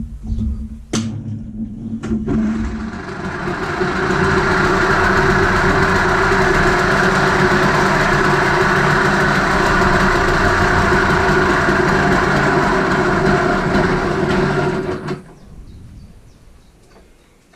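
Echo 4500 backpack leaf blower's two-stroke engine running, throttled up over the first few seconds and held at a steady high speed with the fan's rush of air, then shut off about fifteen seconds in and winding down. The owner says the carburettor definitely needs tuning.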